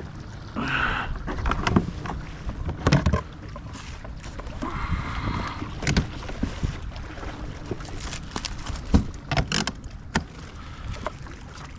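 Scattered knocks, taps and rustles of handling on a kayak as a caught pickerel is laid out and measured, the hull and gear knocking irregularly.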